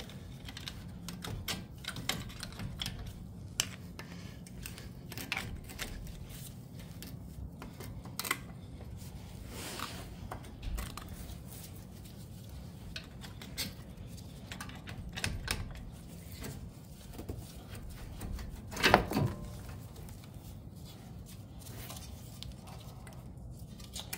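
Scattered light clicks and metallic clinks of hands working a car's front brake caliper loose and freeing its brake pad wear-sensor wire. One louder clank with a short ring comes about three-quarters of the way through.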